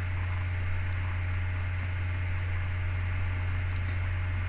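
Steady low electrical hum with a background hiss, and a single faint click near the end.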